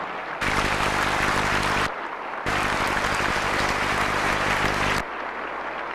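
Crowd applauding in two stretches, each of which starts and cuts off abruptly, with a short quieter gap between them about two seconds in.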